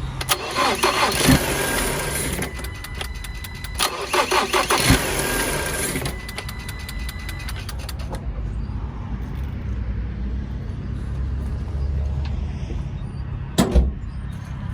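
2019 Ford Transit Connect engine cranked and started twice: each time a couple of seconds of fast starter cranking catches into running, then it settles into a steady low idle. The starts sound healthy, though the engine won't stay running long while its vacuum lines and other connections are still undone. A single thump near the end.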